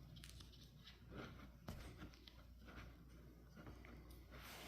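Near silence with a few faint clicks and rustles of a ratchet strap being handled as a knot in it is worked loose.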